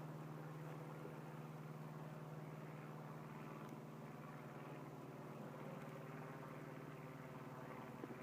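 Steady low engine hum, holding one pitch throughout.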